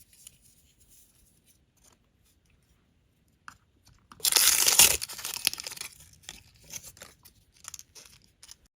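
Small plastic packaging torn open: a loud tearing crinkle lasting about a second, about four seconds in, amid light crinkling and small clicks of the wrapper and tiny plastic pieces being handled.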